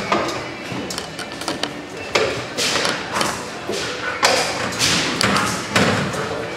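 Puppies scrambling about a pen with a raised plastic floor: a run of thumps and taps from paws and bodies, with a few louder noisy bursts.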